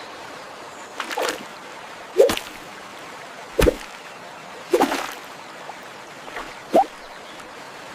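Water drops dripping one at a time, about five sharp plinks at irregular intervals over a steady faint hiss.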